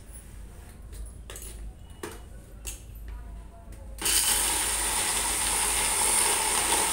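Clicks and knocks as a mixer-grinder jar is set and locked onto its base. About four seconds in, the electric mixer grinder starts abruptly and runs steadily with a high whine, grinding soaked chana dal into a coarse paste.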